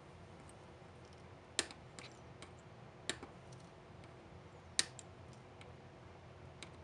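Xuron flush cutters snipping the soldered component leads off a circuit board: a sharp click at each cut, three loud snips about a second and a half apart with a couple of fainter ticks between.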